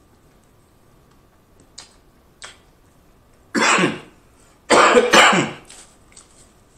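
A man coughing with a mouthful of food: a few soft mouth clicks, then one loud cough about three and a half seconds in and two more close together a second later.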